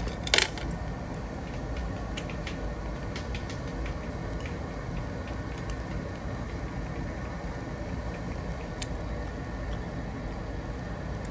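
Steady low rumble with scattered light clicks, and one sharp, louder click about half a second in.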